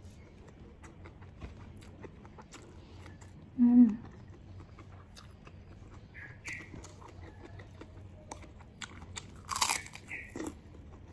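Close-up chewing and mouth clicks of someone eating rice and latoh sea grapes, with a brief hummed sound about four seconds in. Near the end comes a loud crunch as a kerupuk cracker is bitten.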